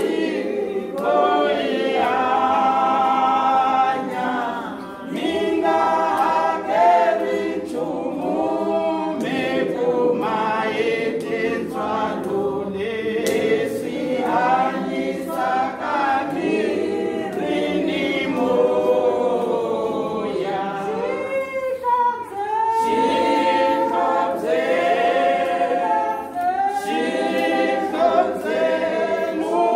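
A group of women singing together unaccompanied as a small choir, several voices at once, with continuous sung phrases.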